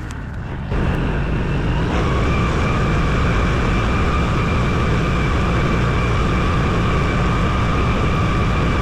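Farm tractor engine running steadily at raised throttle, with a steady high whine joining about two seconds in. The whole sound starts suddenly under a second in and cuts off abruptly at the end.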